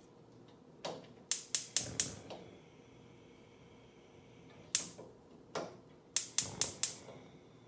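Gas stove burner's spark igniter clicking in two quick runs of about four clicks a second, with a single click between them.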